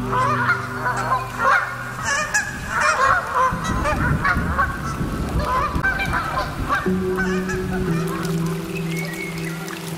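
A flock of birds honking and cackling continuously over a steady low drone of held tones that shifts in pitch about seven seconds in. A low rumble swells in the middle.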